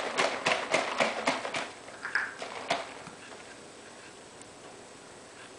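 A bottle of tubeless tire sealant shaken hard with quick strokes, about three a second, stopping about three seconds in.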